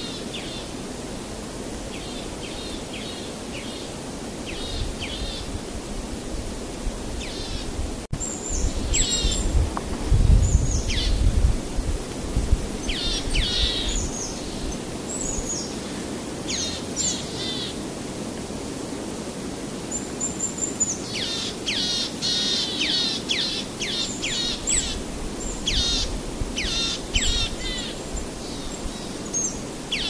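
Small birds chirping and calling over steady outdoor background noise: many short high calls, some sweeping steeply down in pitch, coming thicker and in quick runs in the second half. A sharp click about eight seconds in, followed by a low rumble for a few seconds.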